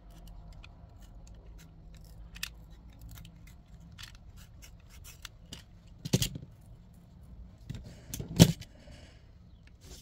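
Handwork on small metal parts: a scatter of light clicks and clinks over a low hum, with two sharp, louder clicks about six seconds in and again about eight and a half seconds in.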